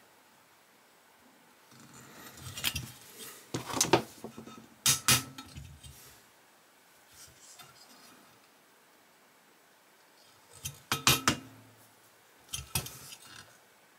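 Steel tools clinking and scraping against the metal body of a diecast model car: a screwdriver and side cutters being handled against the stripped shell. The clinks come in a few short clusters with quiet gaps between.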